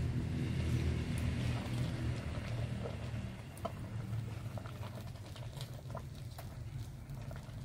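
Wooden paddle turning and folding thick banku corn dough in an aluminium pot, giving scattered soft sticky slaps and clicks over a low steady hum. The dough is being flipped so the bottom part comes up to cook partway through the boiling.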